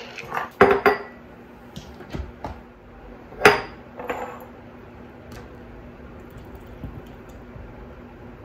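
Glass mason jars knocking and clinking as they are set down on a stone countertop: a few sharp knocks early, the loudest single knock about three and a half seconds in, then quiet.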